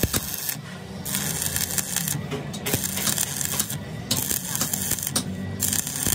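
Stick (arc) welding electrode crackling and sizzling while weld metal is built up on a broken pinion gear tooth. The arc stops for a moment about four times, near one second, two and a half, four and five and a half seconds, then strikes again.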